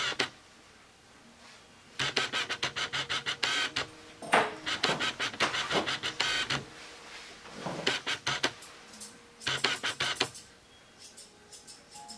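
Grooming shears snipping through a terrier's coat in runs of quick, even cuts with short pauses between runs.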